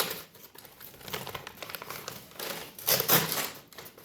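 Lego City set box being opened by hand: cardboard and packaging rustling and crinkling, louder about a second in and again near three seconds.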